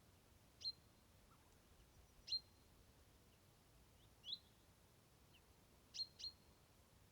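A songbird calling: five short, sharp, high chirps about every two seconds, the last two close together, over a faint quiet outdoor background.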